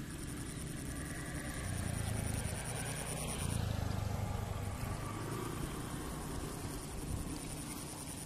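Steady low rumble that swells twice, with a faint, steady high-pitched whine above it.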